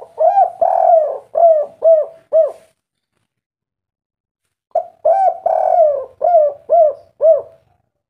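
Spotted dove (tekukur) cooing two song phrases about two seconds apart. Each phrase has a couple of short opening notes, a longer drawn coo, then three short arching 'kuk' notes: the 'kuk 3' song type.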